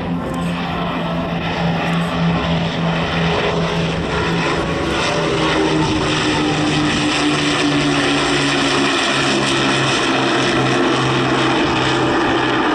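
Avro Lancaster bomber's four Rolls-Royce Merlin V12 engines droning steadily in a low pass, the pitch dropping about halfway through as it goes overhead and away.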